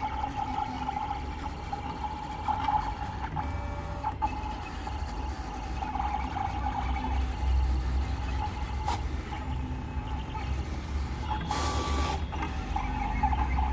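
SkyCut vinyl cutting plotter contour-cutting printed vinyl stickers: its carriage and feed motors whine steadily, swelling and easing as the cutting head moves, over a low hum. A short rasping burst comes near the end.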